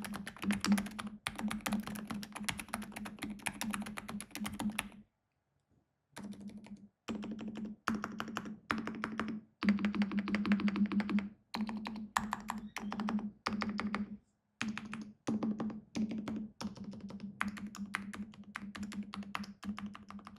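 Typing on a Keychron K10 full-size wireless mechanical keyboard fitted with silent red linear switches: rapid, soft keystrokes in runs. There is a pause of about a second some five seconds in, and several shorter breaks after it.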